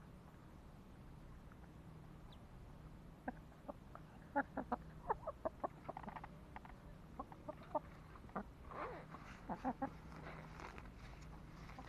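Chickens clucking: a run of short, quick clucks begins about three seconds in, busiest around four to six seconds and again around nine to ten seconds.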